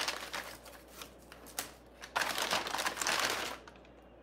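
Paper takeout bag rustling and crinkling as a hand reaches in and pulls out a paper cup. There is a short spell of rustling at the start and a longer one from about two seconds in.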